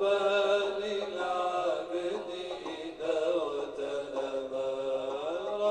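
Background music: a slow melody of long held notes that glide from one pitch to the next, chant-like in character.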